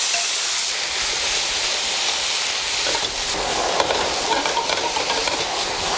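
Hot oil in a wok sizzling and hissing as a load of bean sprouts and leaf lettuce is tipped in. From about halfway through, a metal ladle scrapes and clatters against the wok as the vegetables are stir-fried.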